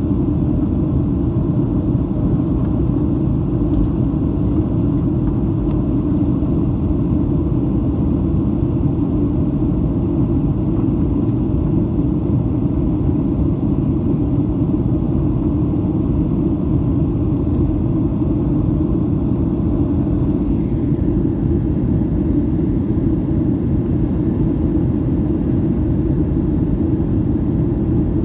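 Steady low rumble of an airliner's jet engines and rushing airflow, heard from inside the passenger cabin in flight.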